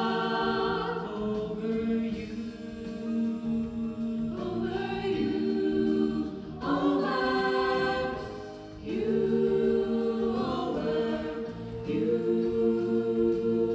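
Choir singing slow, sustained chords that move to a new chord every few seconds.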